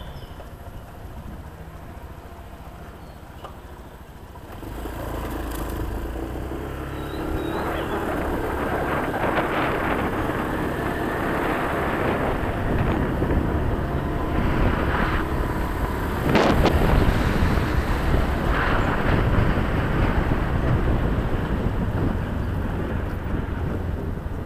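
Wind buffeting the microphone of an action camera held out on a selfie stick from a moving motor scooter, over the scooter's engine running. Quieter for the first few seconds, it grows louder about four seconds in as the scooter picks up speed, with a brief louder gust about sixteen seconds in.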